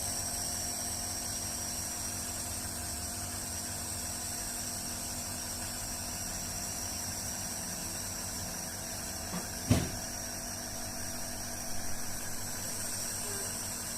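Steady hum with a sharp knock about ten seconds in and a few faint clicks a couple of seconds later.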